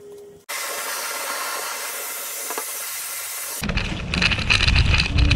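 A steady, loud hiss for about three seconds that stops abruptly, then wind buffeting the microphone while riding an electric bicycle, a heavy, gusty rumble.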